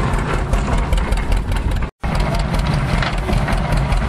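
An old tractor engine runs steadily at a low chug while belt-driving a stationary baler. The sound cuts out for an instant about two seconds in.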